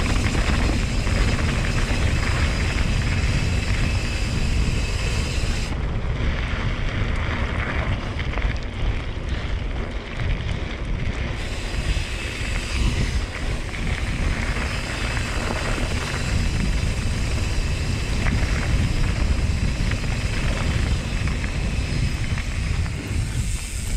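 Wind buffeting the camera microphone and mountain bike tyres rolling over loose gravel during a descent, a continuous rushing rumble.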